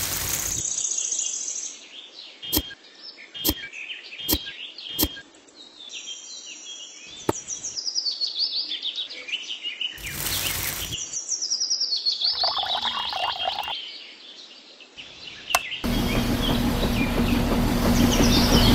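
Small birds chirping steadily, with a few sharp clicks early on. Near the end a small electric motor starts and runs with a steady hum, louder than the birds.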